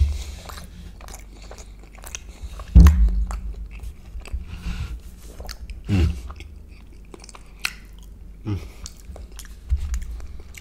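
Close-miked chewing of a crab cornbread fritter: wet mouth smacks and clicks throughout. A loud low thump comes about three seconds in, with softer thumps around six and eight and a half seconds.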